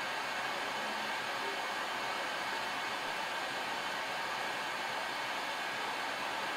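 Hot-air rework station blowing a steady hiss through its nozzle while heating a GDDR5 memory chip on a graphics card board.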